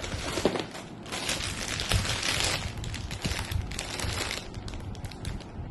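Packaging rustling and crinkling as a LEGO set is unpacked: plastic bags of pieces being handled. The rustling gives way to scattered small clicks near the end.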